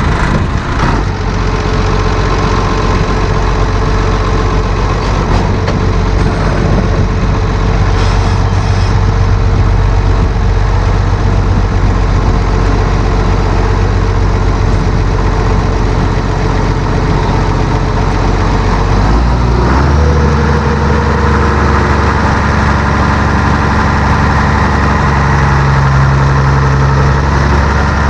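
Tractor engine running steadily. About twenty seconds in, its note changes as the engine speed shifts, then it runs on steadily at the new speed.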